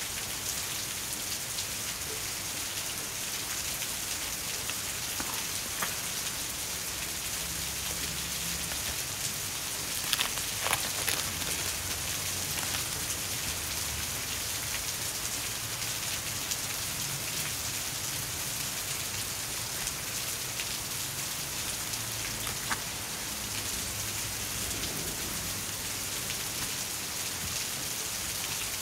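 A steady hiss like falling rain, with a few light clicks about ten seconds in and once more later on, as plastic-sleeved stationery packets are handled.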